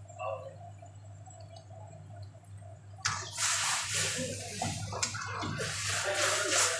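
Boiling water bubbling and sloshing in a pan as a spatula stirs and breaks up a block of instant noodles. The sloshing starts suddenly about three seconds in and grows loud and uneven.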